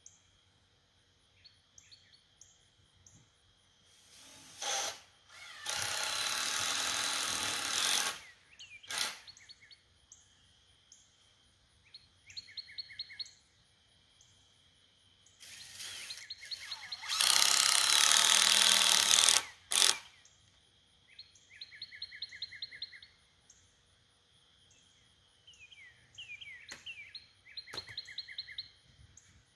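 A power tool runs in two loud bursts of two to three seconds each, about a fifth and two-thirds of the way in, with a few sharp knocks around them. Birds chirp in the gaps between.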